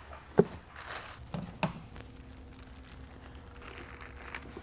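A few sharp knocks and some plastic crinkling as a plastic mixing bucket and plastic sheeting are handled, the loudest knock about half a second in. A faint steady hum starts about two seconds in.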